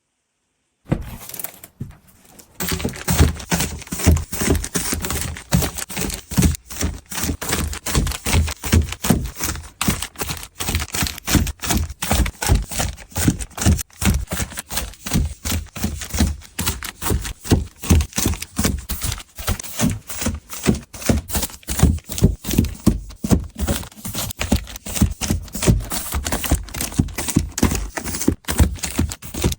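Close-up handling noise starting about a second in: a dense, unbroken run of clicks, taps and knocks with some crinkling, as of items and packaging being picked up and set down.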